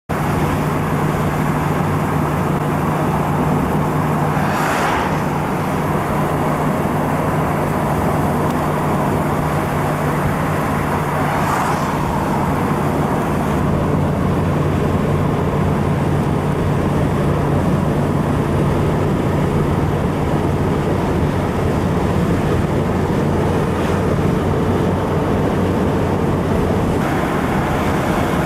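Steady drone of vehicle and road noise with a low hum, broken by two brief whooshes of vehicles passing about 5 and 12 seconds in.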